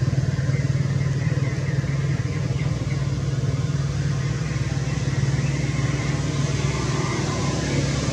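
An engine running steadily, a low even hum with no change in pace.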